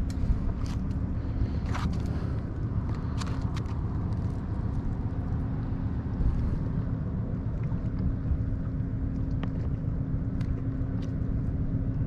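A motor runs with a steady low hum and rumble, with scattered light clicks over it.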